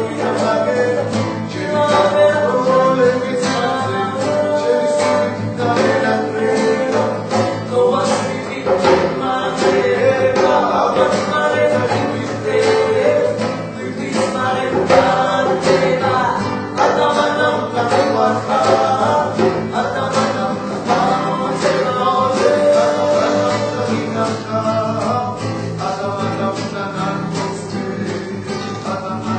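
Two male voices singing together to a strummed acoustic guitar and a hand-played djembe drum.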